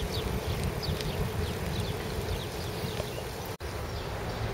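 Outdoor street ambience: a steady low rumble with a buzzing edge, with a few short high chirps in the first second or so. The sound drops out for an instant about three and a half seconds in.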